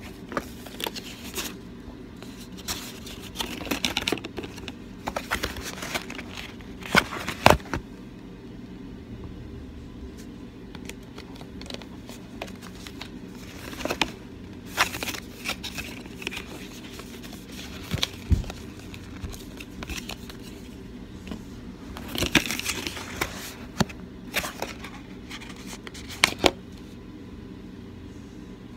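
Paper and cardboard packaging handled close to the microphone: crinkling and rustling with irregular sharp taps and clicks as cards and boxes are picked up and set down.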